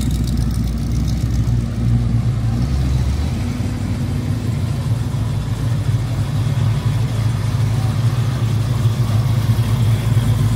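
Muscle car engine idling low and steady, its note shifting slightly about three seconds in.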